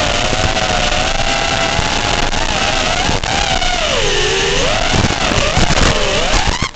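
FPV quadcopter's brushless motors whining over a dense hiss of wind and noise, the pitch rising and falling with throttle, dropping low about four seconds in and swinging up and down again near the end.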